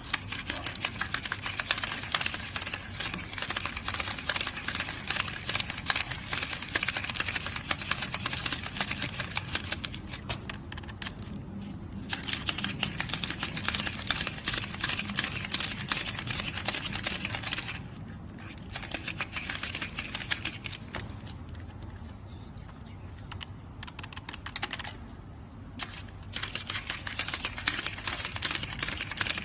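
A stack of paper banknotes being counted fast by hand, the notes flicked past the fingers one after another in a dense run of crisp snaps. The flicking eases off for a few short spells past the middle.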